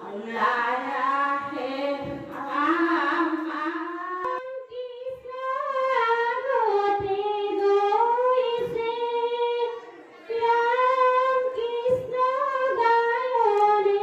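Women singing a slow song with long, drawn-out notes into microphones. About four seconds in the melody jumps abruptly to a higher held line, and the singing breaks off briefly around ten seconds in before going on.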